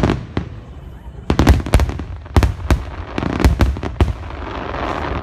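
Aerial firework shells bursting in rapid volleys: clusters of sharp bangs coming about a second apart. After about four seconds the bangs stop and a steady wash of noise remains.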